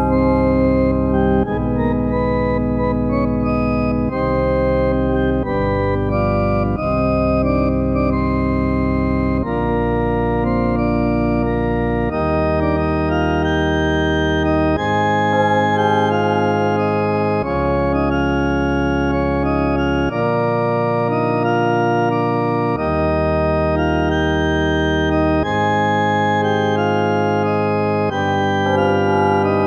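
Background organ music: sustained held chords that change every second or two at a steady level.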